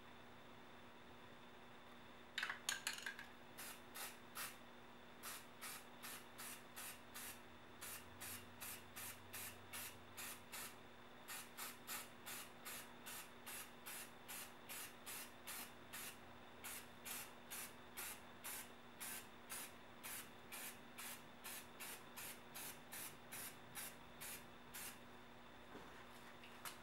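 Aerosol spray paint can sprayed in short hissing bursts, about two a second. A brief rapid clatter comes about two seconds in, just before the spraying starts.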